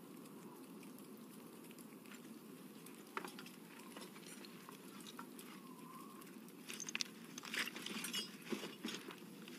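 Faint, steady low rumble of ambience with scattered crackles and ticks, the crackling growing denser in the last few seconds.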